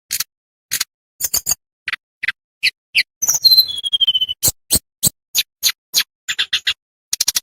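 Tledekan bambu singing: a fast, uneven string of sharp, clicking chips and short high notes, packed closely with short gaps, with a falling whistle about three and a half seconds in.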